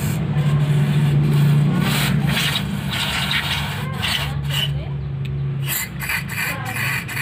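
Carburettor cleaner hissing from an aerosol can in a series of short bursts, sprayed into the jets and bore of a motorcycle carburettor to clear out crusted deposits. A steady low hum runs underneath.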